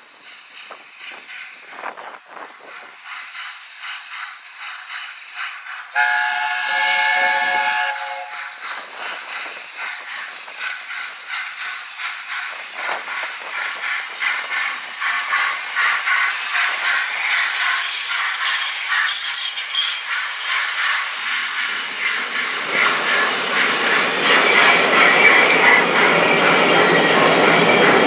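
LNER A4 Pacific steam locomotive sounding its chime whistle, several notes together for about two seconds around six seconds in. Then the train's running noise comes in a regular beat and grows steadily louder as it draws near, loudest near the end as the coaches pass close by.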